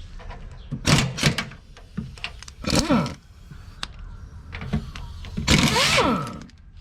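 Spanner work on the ZIL-157's body mounting bolts: several sharp metallic knocks and clicks about a second in, then two drawn-out squeaks that slide in pitch, about three and six seconds in, as nuts are turned.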